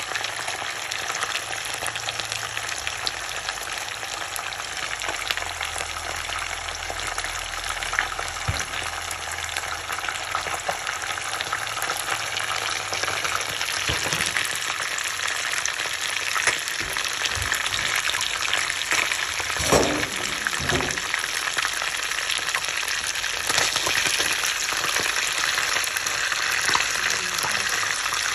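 Whole fish pan-frying in hot oil in a nonstick pan: steady sizzling with fine crackling and popping of the oil, and a brief louder knock about two-thirds of the way through.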